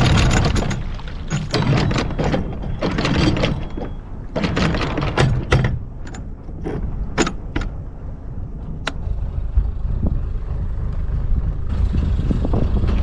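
Anchor chain coming aboard over the bow windlass, clanking in irregular bursts as the links feed over the gypsy, over a steady low rumble.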